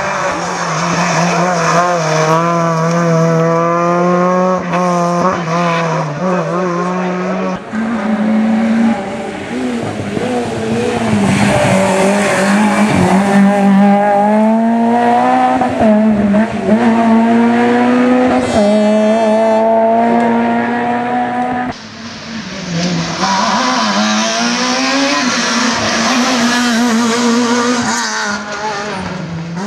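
Rally car engines running hard at high revs as cars drive through a stage one after another. The pitch climbs steadily in each gear and falls back at each change, with a short dip in loudness about three quarters of the way through.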